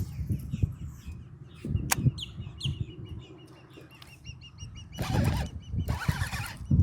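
Small birds chirping repeatedly over a low rumble. Near the end come two harsh bursts of noise, each under a second long.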